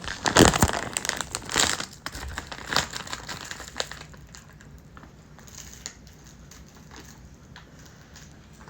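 A rapid run of sharp clicks and crinkling, crackling noise for about four seconds, then fainter scattered clicks.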